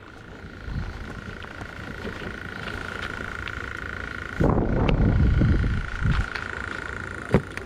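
A steady high-pitched drone runs throughout. About four seconds in, a low rumble of wind buffeting the microphone takes over for about two seconds. A single sharp click comes near the end.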